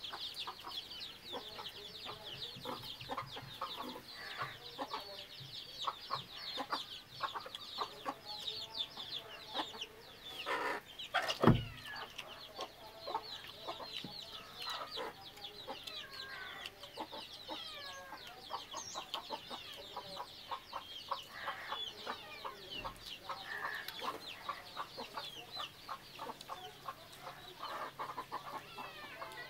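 Chickens clucking and calling around the place, with many short, high, falling calls repeated throughout. A single loud thump comes about eleven and a half seconds in.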